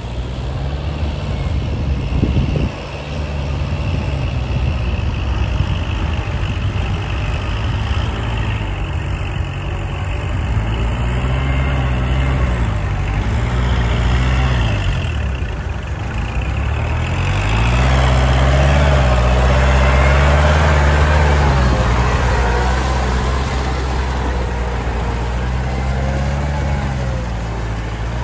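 Kubota tractor's diesel engine running under load as it pulls a rotary tiller through flooded paddy mud. The engine note rises and falls several times and is loudest a little past the middle.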